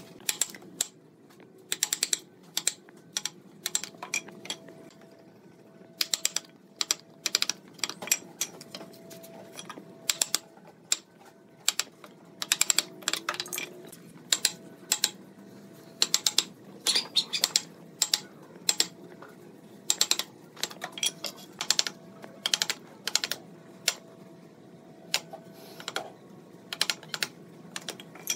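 Wooden mallet striking a wood chisel as it chops notches into a wooden chair part: sharp knocks that come in quick clusters of a few blows, with short pauses between.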